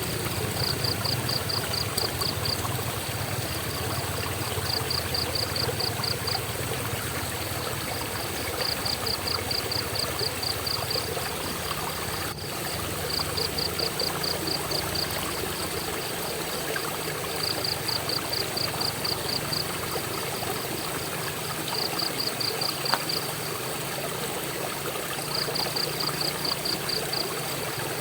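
Flowing water rushing steadily. Over it, a high pulsed chirp sounds in trains of about six pulses a second, each train lasting a second or two and coming back roughly every four seconds.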